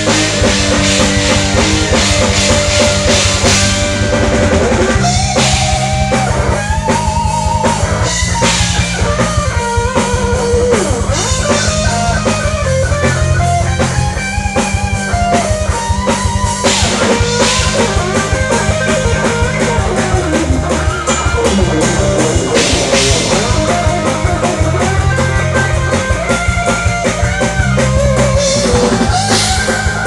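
Rock band playing live through a PA: drum kit and bass guitar keep a steady beat under a wavering melody line, with electric guitar in the mix.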